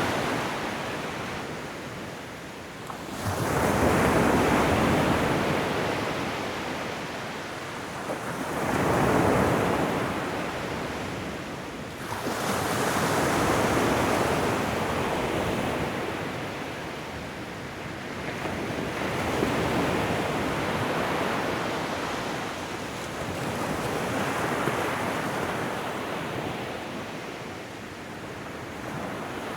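Ocean waves breaking and washing up a shoreline, the surf swelling and fading about every five seconds.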